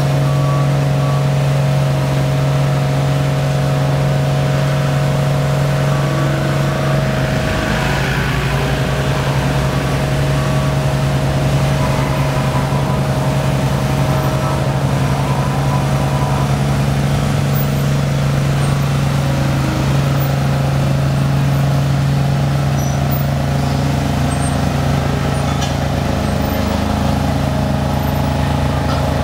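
A diesel engine running at a steady speed, a loud continuous drone with an even low hum, and a brief rush of hiss about eight seconds in.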